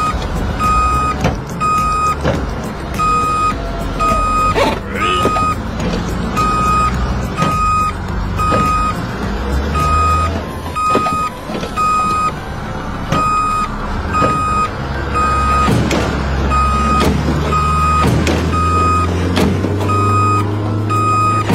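Truck reversing alarm beeping, a short single-pitched beep about twice a second, over a steady low engine rumble.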